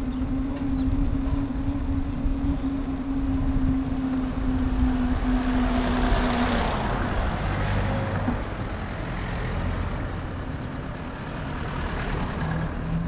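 City road traffic heard from a bicycle: a motor vehicle's engine runs with a steady hum over a low rumble. The hum stops about six and a half seconds in as a rush of noise swells and fades.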